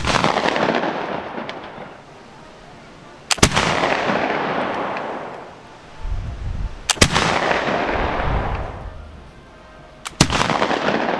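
Four shots from a flintlock Baker rifle firing black powder, about three and a half seconds apart. Each is a quick double crack followed by a long rolling echo that dies away over about two seconds.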